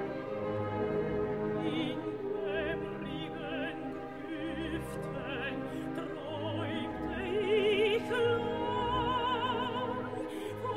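Operatic soprano singing with a wide vibrato over a full symphony orchestra. Her voice enters about two seconds in over the strings and holds a long note near the end.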